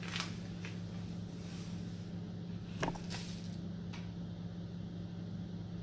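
A steady low hum with a few faint, short clicks and taps, typical of small items being handled at a table.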